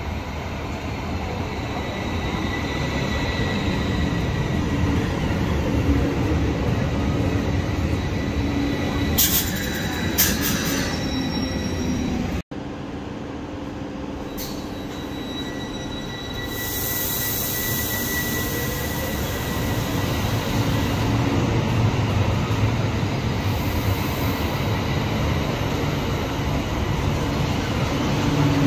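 AVG Stadtbahn tram-train in a tiled underground station, running in as it comes to a stop. Then, after a break, a tram-train pulls out and picks up speed along the platform, with stretches of high wheel squeal.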